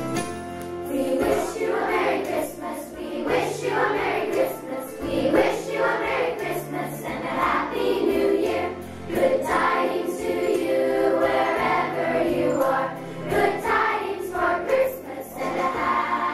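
A choir of children singing a Christmas song over instrumental accompaniment with a bass line that moves note by note.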